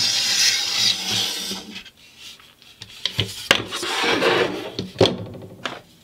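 Wooden dowel rod scraping and rubbing against the wooden frame of a homemade rag-rug loom as it is handled, then a few sharp wooden knocks and clicks.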